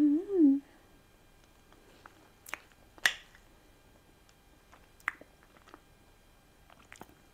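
A short hummed 'mmm' of enjoyment right at the start, then a few scattered sharp clicks of a metal fork against a plate as a bite of cake is cut and taken, the loudest about three seconds in, with faint mouth sounds of eating.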